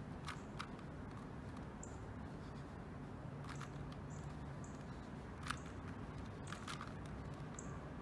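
Plastic 2x2 Rubik's cube being turned by hand, its layers giving scattered sharp clicks, the loudest about five and a half seconds in, over a low steady background hum.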